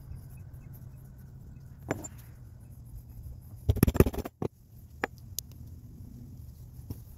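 A few sharp knocks and clicks from objects being handled, with a cluster of louder knocks about four seconds in, over a steady low hum.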